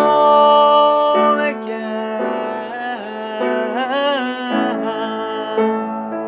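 A man singing to his own piano accompaniment: a long held note on "home", then a few sliding vocal runs over the piano chords.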